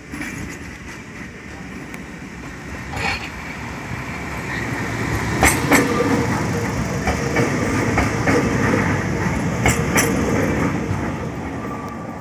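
A Nuremberg U-Bahn train passing close by, wheels clicking sharply over rail joints a few times. The rumble builds to its loudest in the middle of the passage and eases off near the end.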